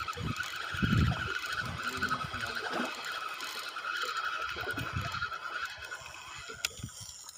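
Spinning fishing reel being cranked fast to bring in a hooked fish, a steady gear whirr that stops about six seconds in, over a few low knocks of the boat.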